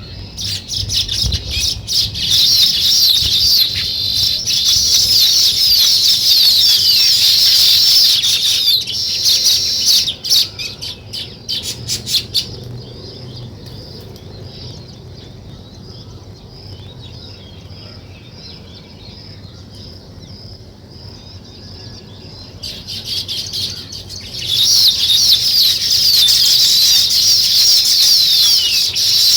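Many sparrows chirping together in a dense, continuous chorus. It drops away after about twelve seconds to a quieter stretch of single repeated chirps, then swells back to full chorus about 24 seconds in.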